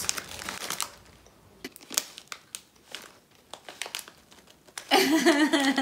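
Crinkling of a foil-lined potato chip bag as a hand reaches in, then scattered small crackles and crunches. A voice sounds near the end.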